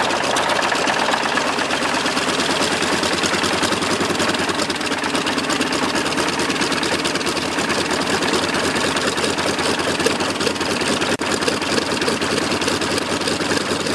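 Sukhoi Su-26's nine-cylinder radial piston engine running steadily, a fast, even stream of firing pulses.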